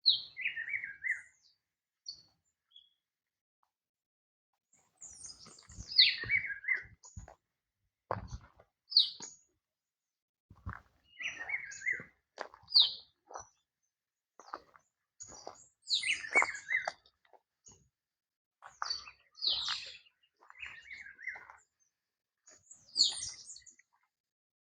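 A songbird calling in short chirping phrases, many falling in pitch, repeated every second or two with gaps between them. A few sharp clicks come along with some of the calls.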